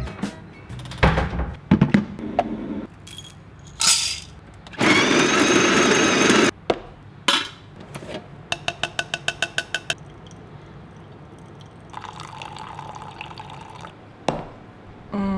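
Coffee-making sounds: clinks and knocks of cups and tools, a loud noisy burst lasting about a second and a half some five seconds in, a quick run of about ten clicks near nine seconds, and liquid being poured later on.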